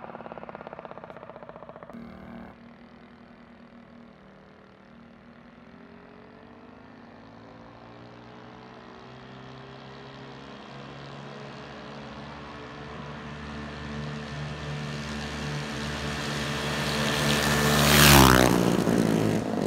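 Mini bike's small engine running at high revs as it approaches from far down the street, growing steadily louder. It passes close by about 18 seconds in, the engine pitch dropping sharply as it goes past.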